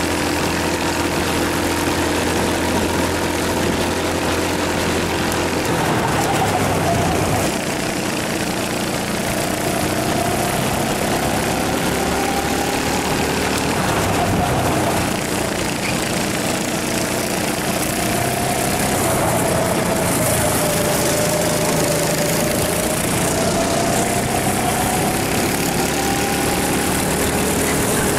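Rental kart engine heard from onboard, holding steady revs for the first few seconds, then rising and falling in pitch as the driver lifts and accelerates through the corners.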